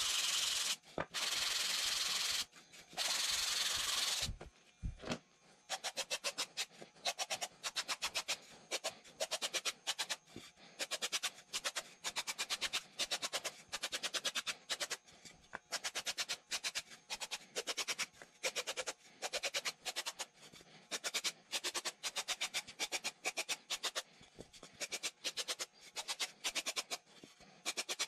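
Sanding sponge rubbing a disc of pink extruded polystyrene foam board. The first four seconds are long continuous strokes; after that come quick short strokes, several a second, in runs with brief pauses.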